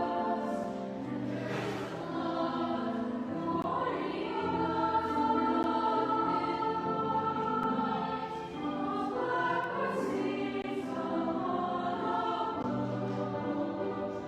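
Children's choir singing, holding notes that shift in pitch every second or so.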